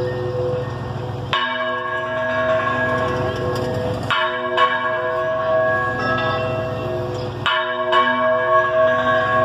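Church bell tolling in its tower, swung to give a strong stroke about every three seconds. Each stroke rings on with several overlapping tones.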